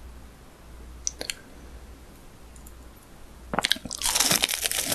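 Close-miked biting into a crisp breaded, deep-fried cutlet: a few light clicks about a second in, then from about three and a half seconds in a dense run of loud crunches.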